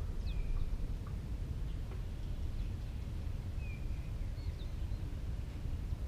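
Steady low outdoor rumble with a few faint, brief high chirps from small birds, several of them falling in pitch, scattered through.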